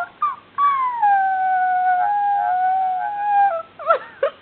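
Miniature pinscher puppy howling: a couple of short yips, then one long howl of about three seconds that slides down a little in pitch and wavers, breaking into quick yips near the end.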